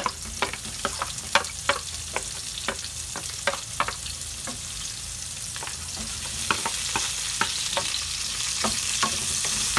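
Onion and garlic sizzling in hot oil in a pan as they are sautéed, with a cooking utensil clicking and scraping against the pan as they are stirred. The sizzle grows a little louder toward the end.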